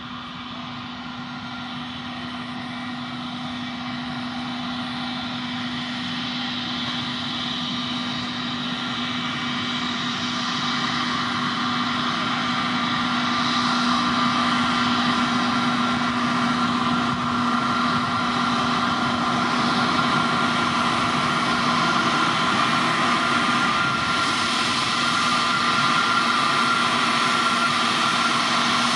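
Airbus A321neo's Pratt & Whitney PW1100G geared turbofans running at taxi power as the airliner taxis: a steady whine over a low hum, growing louder through the first half as it nears, then holding steady.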